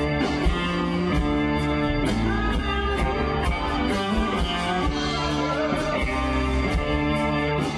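Live rock band playing: guitar over drums, with cymbal strokes keeping a steady beat.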